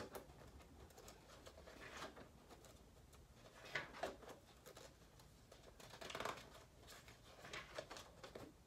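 Faint rustling of Bible pages being leafed through by hand, a few soft page flicks a second or two apart against a quiet room.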